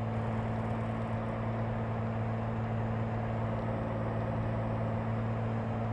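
Cirrus SR22's six-cylinder Continental engine and propeller droning steadily at reduced cruise power, heard from the cockpit. The engine is running rough from a lean-running #2 cylinder, traced to a missing gasket on its fuel injector.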